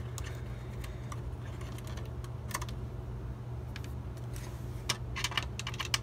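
Light clicks and taps from handling computer parts during disassembly: a few scattered, then a quicker cluster from about four and a half seconds in. A steady low hum runs underneath.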